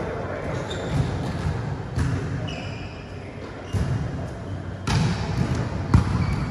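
Volleyball being struck during a rally, a handful of sharp thuds echoing in a large sports hall, the loudest near the end.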